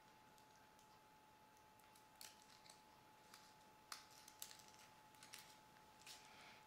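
Faint, scattered small clicks and scratches of a screwdriver tip and fingers working at the foil shielding inside an opened Fujifilm E550 digital camera, starting about two seconds in, the sharpest near the middle. A faint steady high hum runs underneath.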